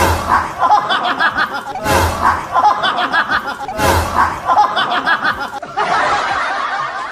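Laughter that repeats in a loop about every two seconds.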